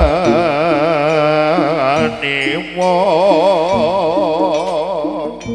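Javanese jaranan accompaniment music: a lead melody held in long notes with heavy vibrato, breaking at about two seconds and resuming with an upward slide, over steady sustained lower tones from the ensemble.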